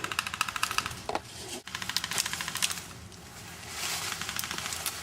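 Airsoft guns firing rapid full-auto bursts of BBs: a fast rattle of clicks in about three bursts, broken by short pauses.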